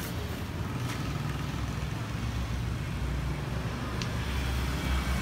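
Steady low rumble of road traffic, with a couple of faint clicks.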